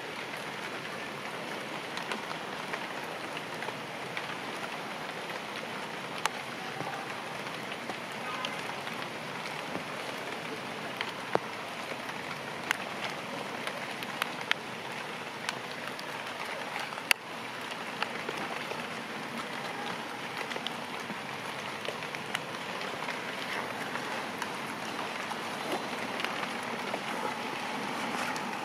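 Steady rain falling on foliage and ground, an even hiss with occasional sharp ticks from single drops.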